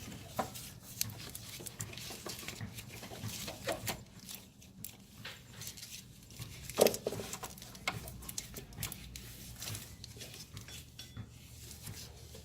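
Scattered light metallic clicks and knocks as a belt is worked by hand onto the engine pulleys, with one louder knock about seven seconds in.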